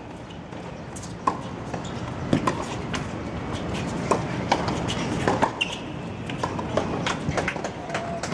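Tennis balls struck by rackets and bouncing on a hard court during a rally, a string of sharp pops at irregular spacing over a steady outdoor background.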